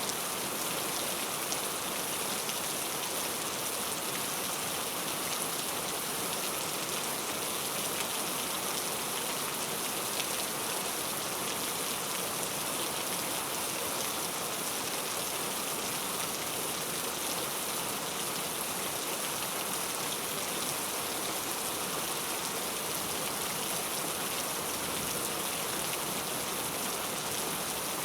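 Heavy, steady rain falling, a dense even hiss with fine drop patter throughout.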